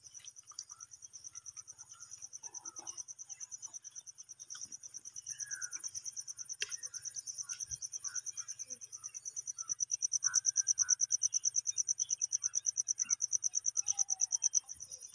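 A high-pitched insect trill pulsing rapidly and evenly, louder from about ten seconds in, with scattered faint bird chirps.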